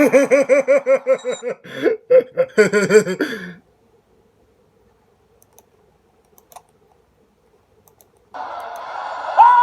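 A cartoon comedy sound effect: a fast wobbling, warbling tone of about seven wobbles a second that stops after about three and a half seconds. Near silence with a few faint ticks follows. Near the end a steady buzzy tone starts, with a short rising-and-falling whistle on top.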